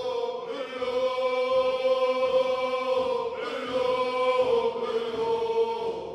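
Closing music: voices chanting or singing long held notes, easing off near the end.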